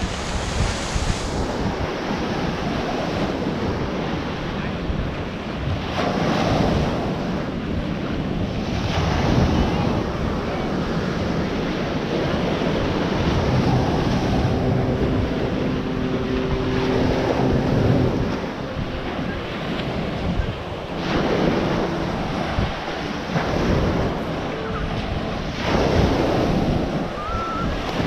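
Small ocean surf breaking and washing up on a sandy beach, swelling several times, with wind buffeting the microphone.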